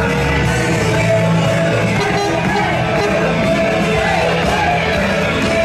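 Loud music with a singing voice, in a rock style, playing without a break.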